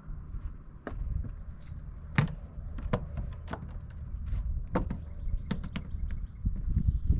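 Scattered light knocks and clicks, about a dozen, from a two-ring wire crab net and its rope being handled and set down on a wooden pier deck, over a low steady rumble.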